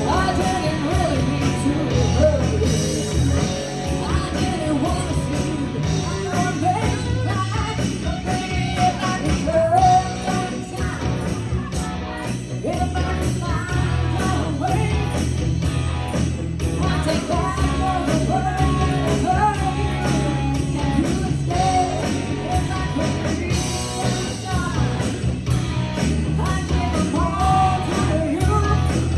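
Live rock and roll band playing, with a singer over guitar.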